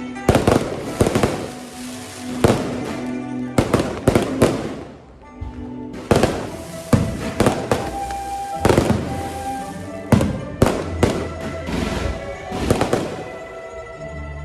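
Aerial fireworks shells bursting in rapid clusters of sharp bangs every second or two, over music with sustained notes.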